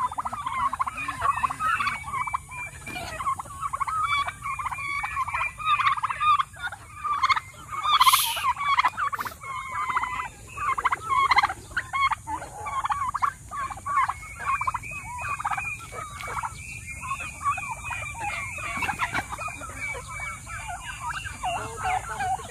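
Several domestic tom turkeys gobbling again and again, their rattling calls overlapping with hardly a break. About eight seconds in there is a brief shrill sound.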